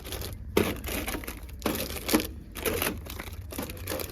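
Plastic snack wrappers crinkling and rustling as packs of snacks are handled, with a few louder crackles about half a second in and again near the middle.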